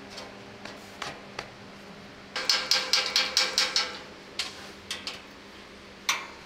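Rusty steel panels of a 37mm tank ammunition rack knocking and clanking as they are handled and fitted together. A few single knocks, then a quick run of about eight metallic clatters in the middle, then a few more knocks.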